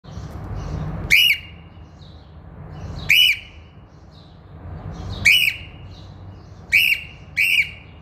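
Grey cockatiel giving loud, shrill contact calls: five short calls about two seconds apart, the last two closer together.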